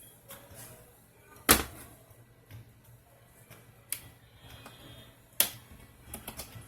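Sharp clicks and knocks of hard parts and tools being handled while a TV's main board is refitted. Three loud ones come about a second and a half, four and five and a half seconds in, the first the loudest, with fainter ticks between.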